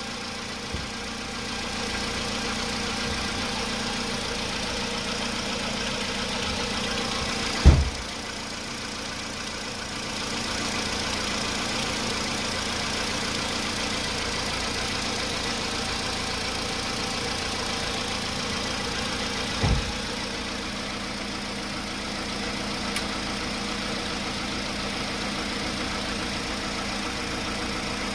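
Skoda Rapid's 1.6 CFNA four-cylinder petrol engine running steadily with a knock, the knock the owner says it still has. Two dull thumps stand out, about eight seconds in and again near twenty seconds.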